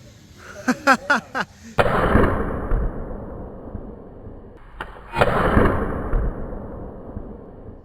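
Homemade combustion potato cannon firing: a few sharp clicks, then a sudden loud bang with a long fading rush, heard twice about three seconds apart.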